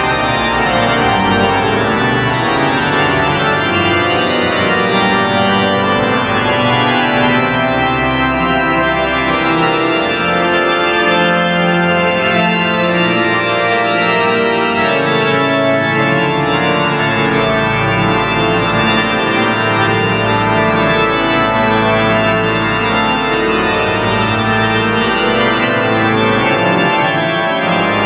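Pipe organ playing loud, dense sustained chords over low bass notes that shift every few seconds.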